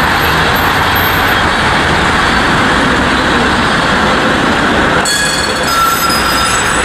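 Steady city traffic noise with a tram running past on its rails. About five seconds in, thin high tones of the tram's wheels squealing on the track join in.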